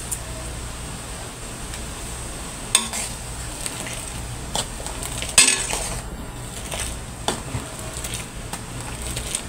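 A ladle stirring simmering coconut milk in an aluminium pan, scraping and knocking against the pan a few times, the loudest knock about halfway through, over a steady low hum.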